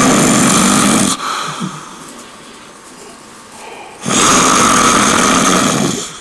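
A person snoring loudly in long breaths. One snore ends about a second in, and the next starts about four seconds in and lasts about two seconds.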